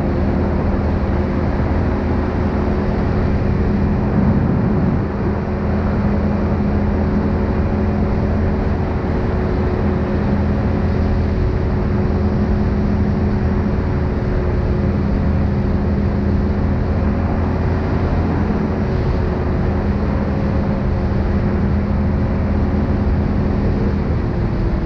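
Linhai 500 ATV engine running at a steady cruising speed, its pitch holding level, with road and wind noise from riding.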